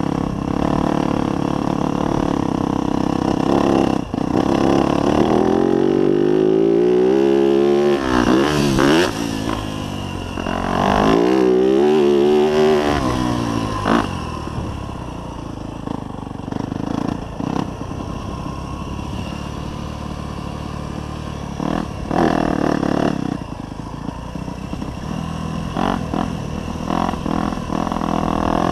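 Yamaha YZ250F's four-stroke single-cylinder engine ridden on a dirt track, its revs climbing and dropping several times through the middle as the throttle is worked, then running lower and steadier with a few short blips of throttle near the end. A few sharp knocks cut in, about four seconds in and again at fourteen.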